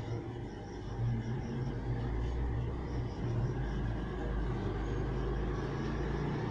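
Low, steady background rumble with a faint hum, of the kind heard from road traffic.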